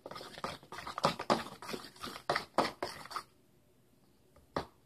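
A fork mixing raw egg and chopped vegetables in a bowl, making quick, uneven clicking taps and scrapes against the bowl for about three seconds. Then it stops, with one more tap near the end.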